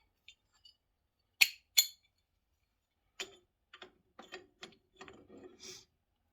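Small metal parts and tools clinking as they are handled: two sharp clinks about a second and a half in, then a run of lighter clicks and knocks.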